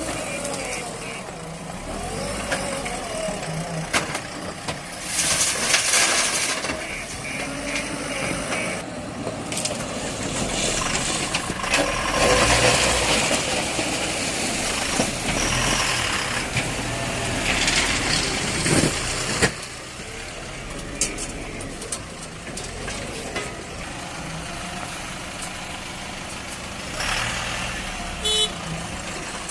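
JCB 3DX backhoe loader's diesel engine working under load, getting louder in stretches and with a sharp knock now and then as it digs and dumps pond mud into a tipper truck.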